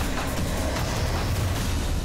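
Dramatic promo soundtrack music with a heavy low rumble under a rushing hiss.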